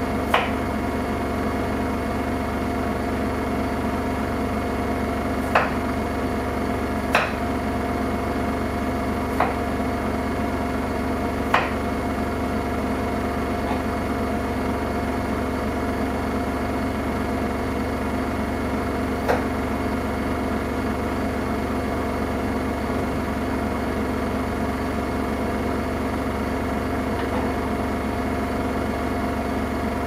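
Samsung Eco Bubble front-loading washing machine in its spin stage, the drum turning at speed with a steady hum and whine. About six sharp knocks come through it in the first twenty seconds.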